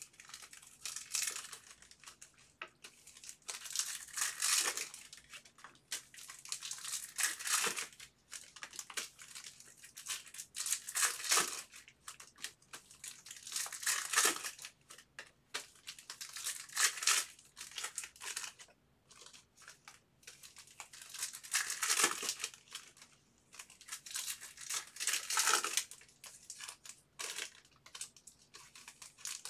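Trading card packs and cards being handled: a crinkling, tearing rustle of foil wrappers and sliding cards that comes in short bursts every few seconds.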